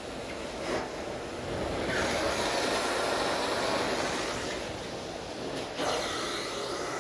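Carpet-cleaning extraction wand sucking water and air out of a synthetic rug: a steady rushing hiss of vacuum airflow that swells for a couple of seconds in the middle.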